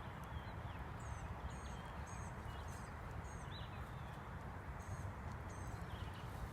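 Steady rushing of river water, with a small bird chirping: short high chirps about twice a second for a few seconds, then again a couple of times near the end.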